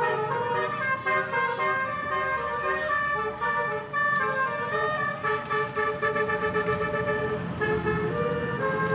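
Bus telolet horn with nine trumpets sounding a quick tune of notes that change several times a second, over a low engine hum.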